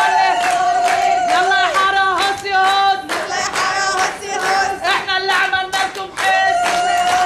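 Wedding procession music and crowd: drums beating a quick, even rhythm of about three to four strokes a second under a held melody line, with many voices mixed in.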